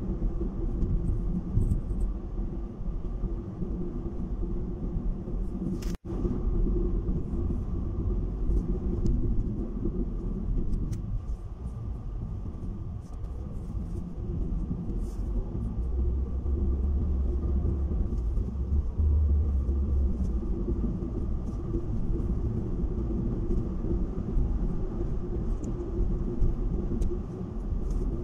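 Steady low rumble of tyre and engine noise inside a moving car, with a faint steady hum over it. The deep rumble grows stronger for a few seconds past the middle.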